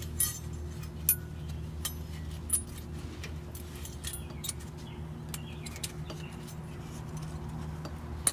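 Thin metal brake pad clips being pressed and snapped into a disc brake caliper bracket: light metallic clinks and clicks, several sharper ones in the first three seconds and one at the end, over a steady low hum.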